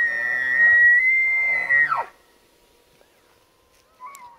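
Bull elk bugling: a high whistle held for about two seconds over a low rasp, then dropping steeply. A brief fainter note follows near the end.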